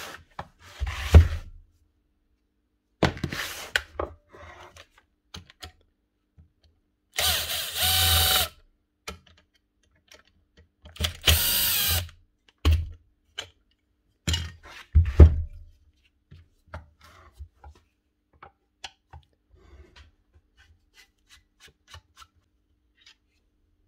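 Cordless drill-driver spinning screws out of a power planer's metal housing in short spells, the two longest about seven and eleven seconds in, with knocks of the tool and housing being handled between them. Near the end, only small clicks of a hand screwdriver and parts.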